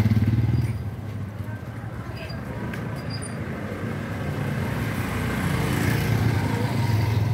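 Motorcycle and scooter engines passing close by, loudest at the start and again near the end as another motorcycle rides past, over general street noise.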